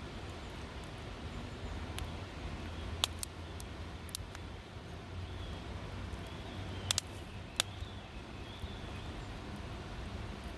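Wood campfire crackling, with a handful of sharp pops scattered through, over a steady low background rumble.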